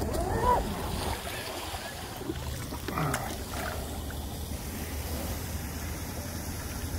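Steady wind noise on the microphone with a low rumble, over open water.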